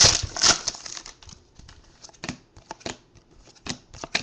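Trading-card pack being handled and flipped through by hand: the wrapper crinkles loudest in the first half-second, then scattered crisp flicks as the cards are snapped past one another.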